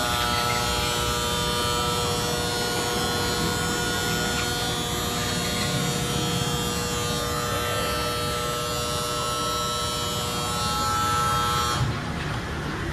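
Steady mechanical buzzing hum of a motor running at constant speed, cutting off abruptly near the end.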